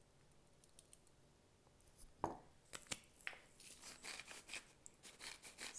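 Faint clicks, taps and rustling from hands working kitchen items while a salad is dressed with oil and salt, starting about two seconds in after near silence.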